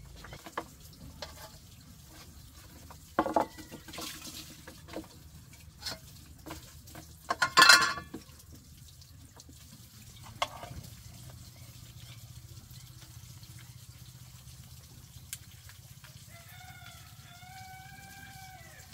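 Scattered knocks and clatter of pots, with water splashing in a basin, loudest in a burst about eight seconds in. Near the end a rooster crows once, a drawn-out call that falls off at the finish.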